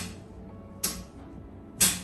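Three sharp slaps about a second apart from chiropractic adjustment thrusts on a patient lying face down, over faint background music.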